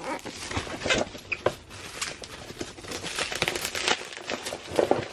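Packaging crinkling and rustling in irregular bursts as an item is pulled out of a shipping box and handled.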